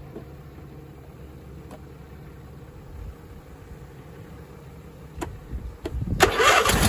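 A low steady hum with a few faint ticks, then about six seconds in the 26 hp Briggs & Stratton Intek V-twin engine is cranked and fires up loudly.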